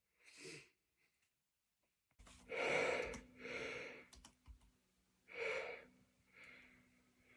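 A person's breathy, catching breaths as a sneeze builds up: four gasps spread over a few seconds, the first the loudest.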